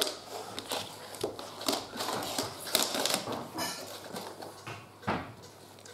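Plastic toy train track pieces clicking and knocking on a wooden floor as they are handled and pushed together: a quick run of clicks over the first few seconds, then one more knock near the end.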